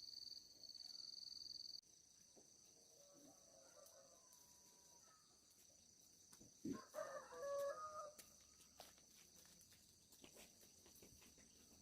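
A rooster crowing once, about seven seconds in, with a fainter crow a few seconds before it. A steady high-pitched buzz stops about two seconds in.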